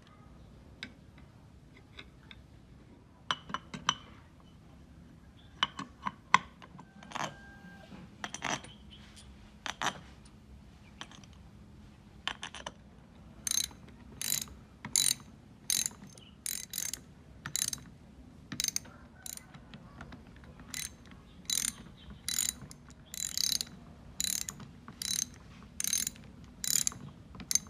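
Hand tool working metal: short, sharp strokes, scattered and uneven at first, then settling about halfway through into a steady run of about one and a half strokes a second.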